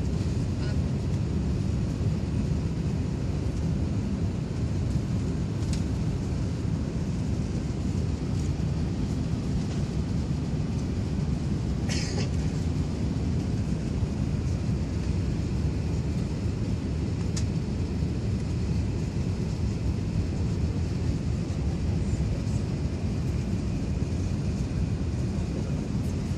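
Steady low rumble of an Airbus A380 in flight, engine and airflow noise heard inside the passenger cabin, with a few brief clicks.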